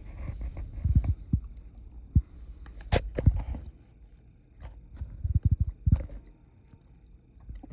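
Handling noise from a handheld phone: irregular low thumps and knocks, with a quick run of them a little past halfway.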